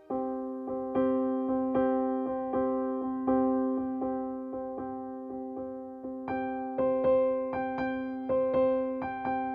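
Background music: a gentle electric piano playing repeated notes, struck roughly one every three-quarters of a second and a little brighter from about six seconds in.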